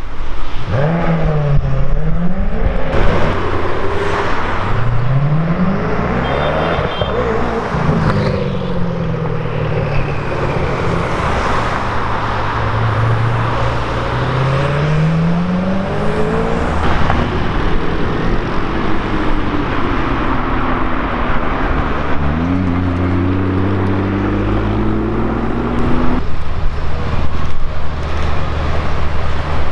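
Koenigsegg hypercar's twin-turbo V8 accelerating through traffic, its pitch rising and dropping several times as it revs and shifts. Near the end a Porsche 918 Spyder's engine takes over, running low and steady.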